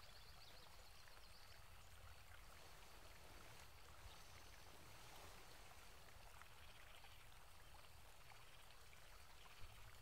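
Near silence: faint, steady background hiss, with one small click near the end.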